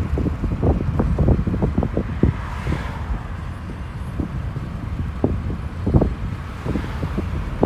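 Low rumble of the Amtrak Empire Builder passenger train going by, with wind buffeting the microphone in irregular gusts.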